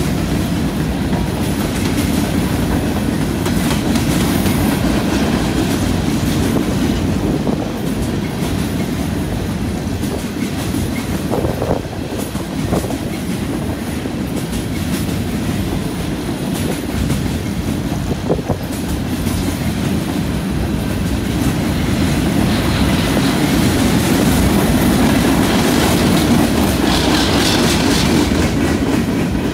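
Empty centerbeam flatcars of a freight train rolling past: a steady rumble of steel wheels on rail with clicks as the wheels cross rail joints, and a brief higher wheel squeal near the end.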